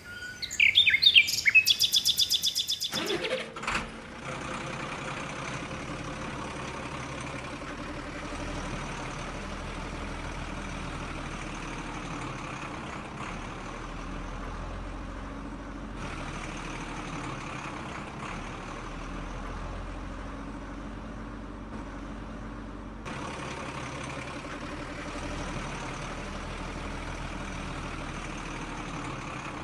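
A loud, fast-pulsing chirping sound for about three seconds, then a steady, even truck-engine-like rumble with hiss.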